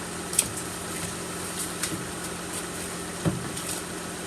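Car engine idling steadily, with a few light clicks and a dull knock about three seconds in.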